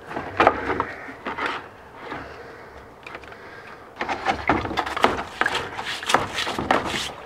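A rusty steel part is handled and rinsed in a plastic bucket of water, with a few knocks against the bucket. From about four seconds in, a stiff-bristled hand brush scrubs it in quick rough strokes, clearing rust loosened by electrolysis.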